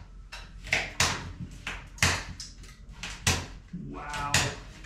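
A hand tool scraping at the cracked drywall seam of a ceiling, in repeated short strokes about two a second, as the cracked joint compound is worked loose.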